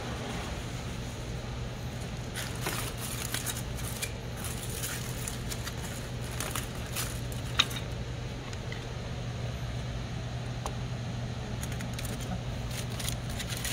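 Aluminium foil crinkling and tearing in scattered crackles as gloved hands pull a foil wrap open, with one sharp click a little past halfway, over a steady low hum.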